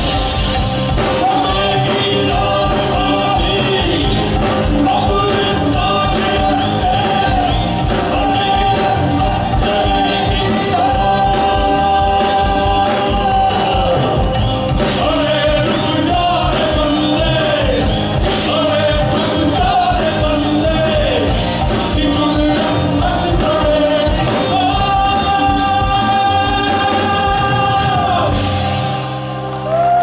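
Indian fusion rock band playing live through a PA: drum kit, guitars and bass under a male voice holding long sung notes that slide between pitches. Near the end the band drops out for a moment, then the sound comes straight back up as the song closes and the crowd starts to cheer.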